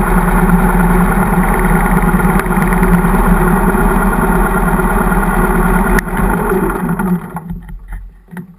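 Harley-Davidson V-twin engine idling steadily with the bike standing still, then a click about six seconds in and the engine runs down to a stop within a second or so.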